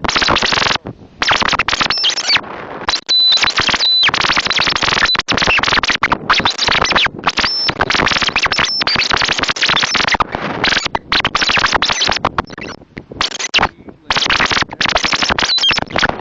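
Strong gusting wind blasting the microphone: a loud, harsh rushing noise that keeps cutting out for split seconds.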